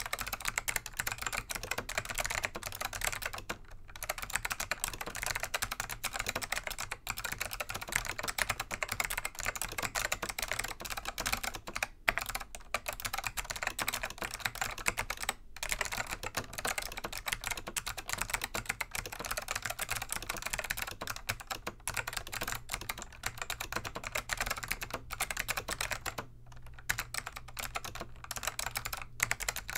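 Continuous touch-typing on a Dell AT101 keyboard with Alps SKCM Black switches that have been click-modded by removing the retaining tabs of the tactile leaves: a dense, rapid stream of sharp key clicks. The typing breaks off for a moment several times.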